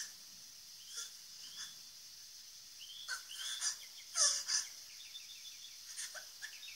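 Small birds chirping in a cartoon soundtrack, with short high gliding calls and a quick run of little chirps near the end. A girl's sobbing breaths come through a few times, the loudest about four seconds in.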